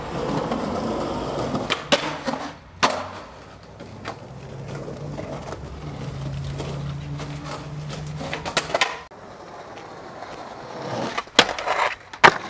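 Skateboard wheels rolling on concrete, broken by sharp clacks of the board popping and landing. Near the end comes a quick run of loud clacks as the board is popped onto a metal rail.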